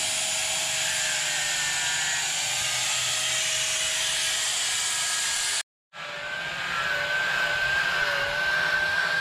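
Handheld electric sander running steadily against a fibreglassed marine-plywood daggerboard, shaping it: a motor whine that wavers a little in pitch as it is pressed on, over the hiss of the abrasive. It breaks off for a moment a little past halfway, then starts again.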